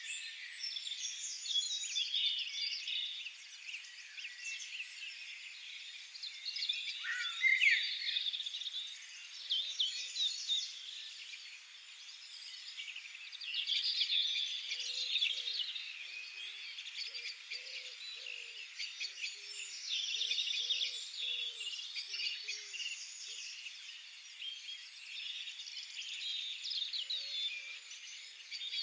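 Several songbirds singing at once in an open-field dawn-chorus-like mix of high chirps, warbles and rapid trills, with faint low-pitched short calls repeating in the middle.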